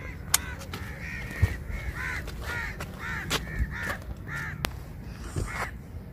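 Crows cawing repeatedly, a long run of harsh caws a half second or so apart, with a few sharp clicks in between.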